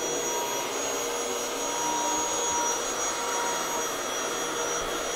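Upright vacuum cleaner running steadily as it is pushed over carpet: an even rush of air with a constant motor whine.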